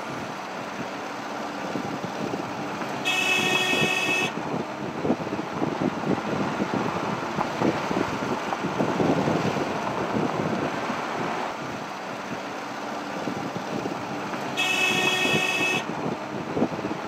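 Vehicle horn sounded twice, about eleven seconds apart, each blast a little over a second long, over the steady rumble and rattle of a minibus driving on an unpaved mountain track.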